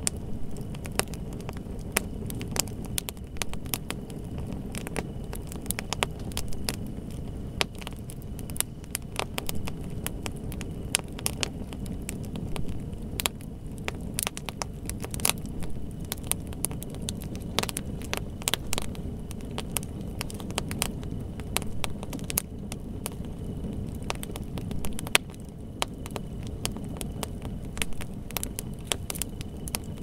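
Wood fire burning: a steady low rumble of flame with frequent, irregular sharp crackles and pops from the burning wood.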